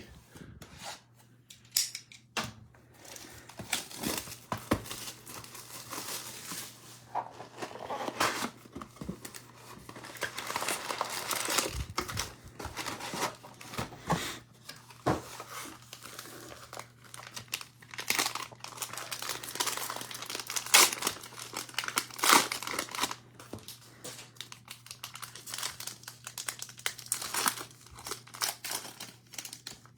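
Cellophane wrappers of trading card cello packs being torn open and crinkled by hand in irregular spurts.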